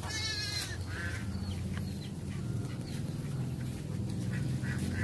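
Ducks quacking among farmyard fowl, starting with a wavering call in the first half second and followed by scattered short calls, over a steady low rumble.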